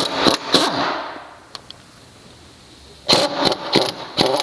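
Impact wrench zipping out the 15 mm caliper bracket bolts in short trigger bursts: one longer run at the start, then a cluster of quick bursts about three seconds in, each winding down in pitch as it stops.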